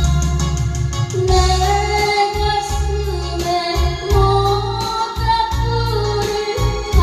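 A song playing: a steady drum beat and bass under a melody of long held notes.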